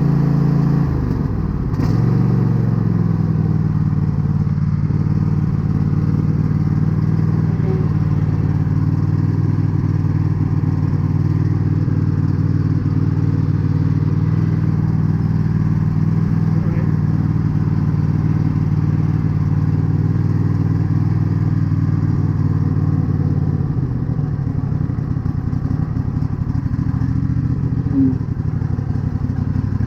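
Craftsman T240 garden tractor engine running steadily, just fitted with a new throttle/choke cable. Its note dips and settles about a second in and drops lower again about three-quarters of the way through.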